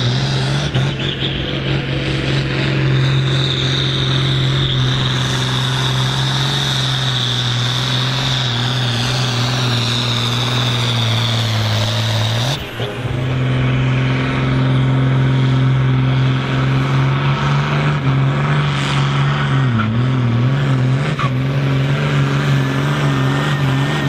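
Ford tractor diesel engines running at full load while pulling a weight-transfer sled, a steady loud engine note with a high whine over the first half. About halfway there is an abrupt change to another pull, and near the end the engine pitch wavers up and down.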